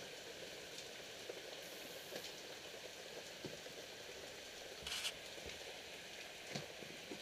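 Steady rain falling, a continuous hiss with scattered drips, and a brief louder burst about five seconds in.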